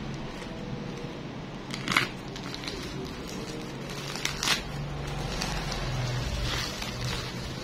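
Bubble wrap and plastic packaging crinkling as a parcel is pulled open by hand, with a few sharp crackles, the loudest about two seconds in and another around four and a half seconds.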